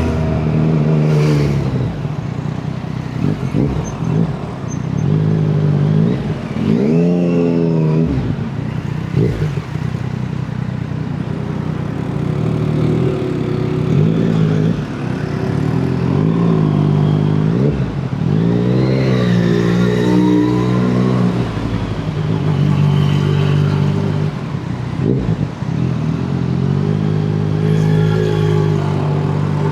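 Yamaha MT-09's inline three-cylinder engine running through an Akrapovic exhaust, holding a mostly steady note with its revs rising and falling with the throttle several times.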